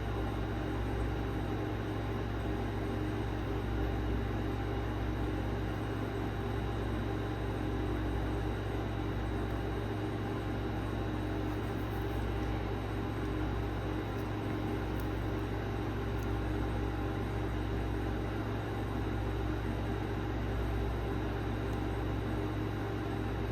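Handheld hair dryer running steadily, a continuous blowing noise with a motor hum.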